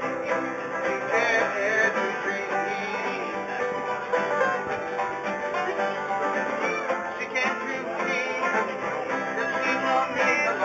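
Acoustic string band playing an instrumental tune, with plucked strings to the fore.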